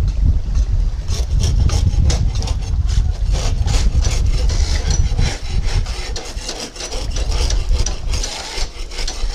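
Hand scrapers rasping barnacles and marine growth off a sailing yacht's fibreglass hull, in many quick repeated strokes. A steady low rumble runs underneath.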